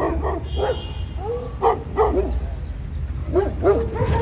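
Dogs barking: a run of short barks, about eight in all, with a pause near the middle.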